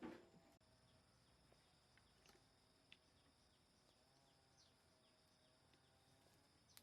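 Near silence: faint rural outdoor background with a steady high insect-like hum and a few faint short chirps. A brief sound opens it, and there is a small click near the end.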